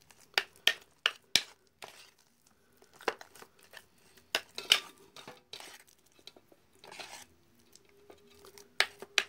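Fish-bait paste being kneaded and stirred by hand in an enamel plate: irregular sticky squishes and sharp clicks as fingers and paste work against the plate, with short pauses between strokes.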